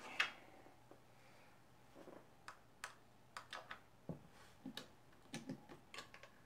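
A string of faint, sharp clicks and taps, irregularly spaced, as the brass clasp on the front of a lacquered wooden case is worked open and the lid lifted.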